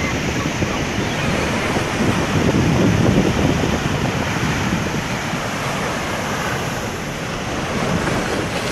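Ocean surf breaking and washing up a sandy beach, with wind buffeting the microphone; the surf swells a little louder about two to three seconds in.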